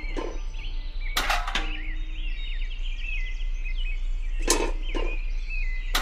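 Small metal toy buckets set down on a wooden trailer bed: a few light knocks, about a second in and again near the end, over background bird chirping.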